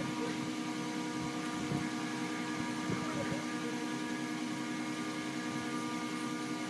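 Steady mechanical hum of running machinery, made of several constant tones, with faint distant voices now and then.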